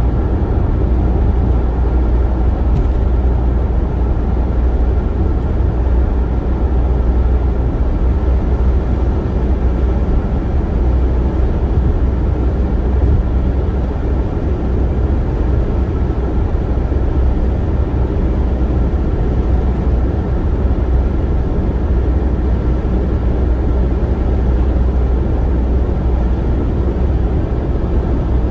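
Car driving at highway speed: a steady low rumble of tyres on the road and engine.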